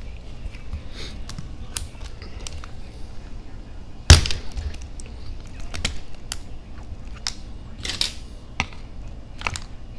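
Scattered clicks and knocks of plastic and metal parts being handled on an RC crawler's chassis as a stubborn bolt is worked out, with one loud sharp snap about four seconds in.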